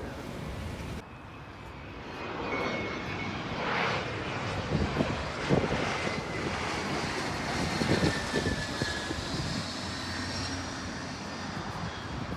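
Airplane engines passing overhead: a rush of engine noise builds about two seconds in, with a high whine that slowly falls in pitch. A few knocks sound in the middle.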